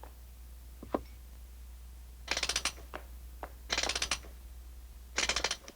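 Clockwork key winding the mechanical nightingale: three short bursts of rapid ratcheting clicks, about a second and a half apart, with a few single ticks before them.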